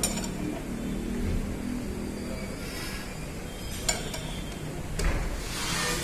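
Light clicks and clinks of motorcycle parts being handled by hand, wiring connectors and the plastic airbox under the seat, with a few sharp clicks over steady background noise.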